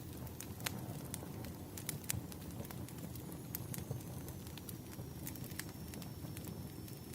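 Wood fire burning, with irregular sharp crackles and pops over a steady low rumble of the flames. A faint thin high whistle slowly falls in pitch from about halfway through.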